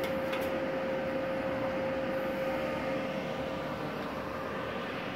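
Steady whir with a constant mid-pitched whine from the cooling fan of a switched-on Multipro MIG 200G-SP welding machine, with a faint click about half a second in.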